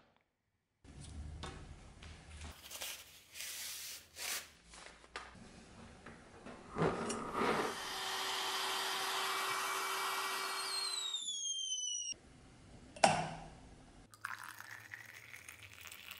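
Metal parts being handled and scraped on a wooden workbench, then a small power tool runs steadily for about four seconds and winds down with a falling whine once switched off. A single sharp knock follows, then water pours into a metal pot.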